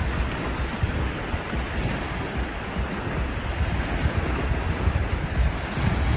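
Wind rumbling on the microphone over a steady rush of water.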